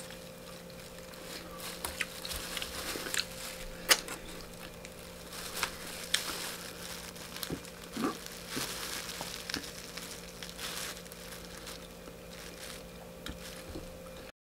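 Crispy fried chicken wing skin crackling and crunching as the wing is torn apart and bitten, mixed with the crinkle of a thin plastic glove. The crackles come irregularly, the loudest about four seconds in, over a faint steady hum, and the sound cuts out just before the end.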